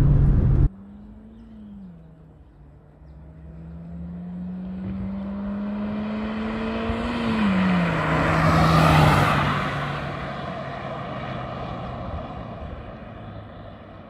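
Volkswagen Saveiro pickup accelerating hard under full throttle: a moment of loud engine noise heard inside the cab, then the engine heard from the roadside, its revs climbing, dropping at a gear change about two seconds in, and climbing again to a second shift. It passes close about nine seconds in, with a rush of tyre and wind noise, then fades away.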